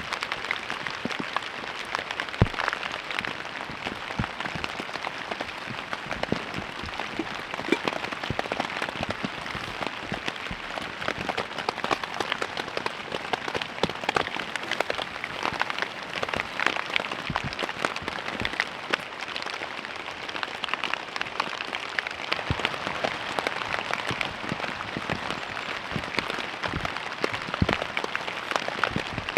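Steady rain falling, a dense hiss with many separate drops hitting sharply.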